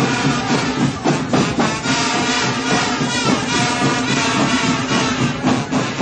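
School marching band playing, brass over a driving drum beat.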